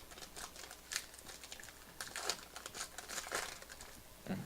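Plastic packaging crinkling and rustling in irregular crackles as trading cards are handled, with a soft thud near the end.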